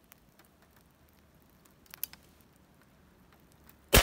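Faint patter and scattered ticks of raindrops hitting a table, then, near the end, one loud report from an unsuppressed AirForce Texan .308 big-bore air rifle firing, ringing out as it fades.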